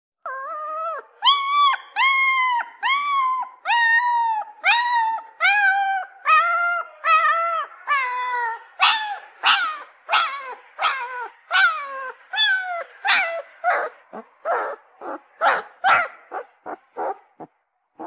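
Puppy crying: a run of high-pitched whimpering cries, about one and a half a second. At first each cry is a long arching whine. From about halfway the cries become shorter, each dropping in pitch, and they thin out near the end.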